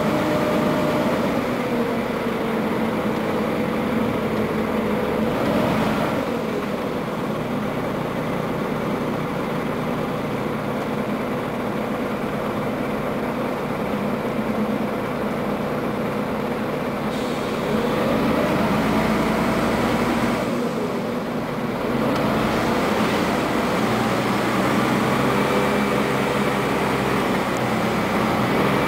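Interior running noise of a Scania N94UA articulated city bus on the move: its diesel engine and driveline run steadily under road noise, with the engine pitch rising and falling several times as it pulls away and changes speed.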